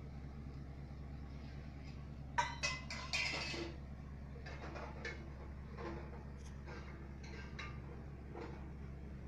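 A few short clinks and knocks, the loudest a quick cluster about two and a half to three and a half seconds in, over a steady low hum.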